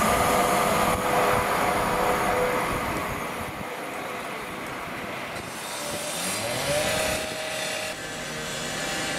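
A train running through the station, its loud noise dying away over the first few seconds. A rising whine follows near the middle, then settles to a steady tone.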